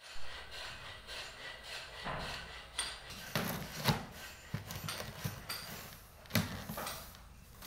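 A cardboard carton's packing tape being slit open along the top seam, with rasping, scraping cuts and a few sharp knocks as the box is handled.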